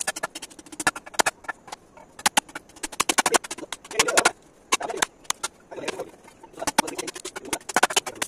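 A blade chopping at bamboo poles: quick runs of sharp knocks, several strokes a second, broken by short pauses.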